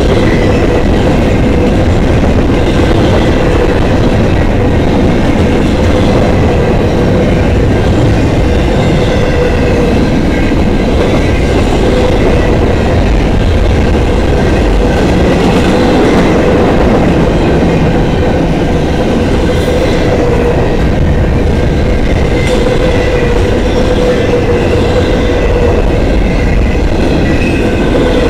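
Freight train's double-stack intermodal well cars rolling past close by: a loud, steady rumble of steel wheels on rail, with a steady ringing tone running through it.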